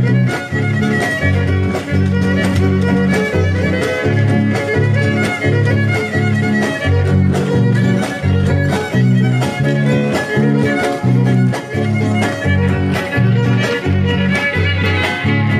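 Huasteco trio playing a huapango instrumental passage: fiddle melody over the steady strummed chords of the jarana and huapanguera.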